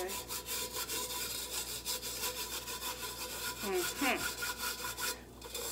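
A hand brushing dried salt crystals off a rusted, ribbed tin can, in rapid, even, scratchy strokes of palm on metal, with a short pause just after five seconds. It is the step after the salt-and-peroxide rusting treatment has worked, when the salt crust is cleared away.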